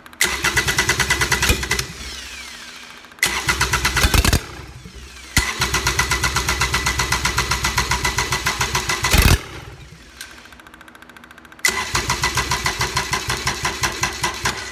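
Kubota D722 small three-cylinder diesel cranking over on its electric starter in four bursts, about six chugs a second with the starter's whine. The engine fires on its first start, and it runs down more quietly each time the starter stops.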